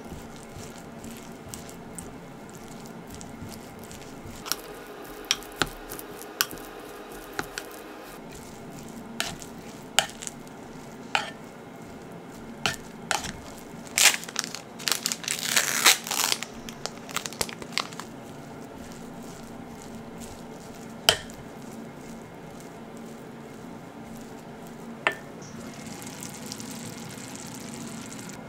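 Kitchen food-prep sounds. A utensil knocks against a rice-cooker pot several times while rice is mixed, then a plastic packet crinkles as shirasu is shaken out, with the crinkling loudest about halfway through. Near the end, hamburger patties sizzle in a frying pan.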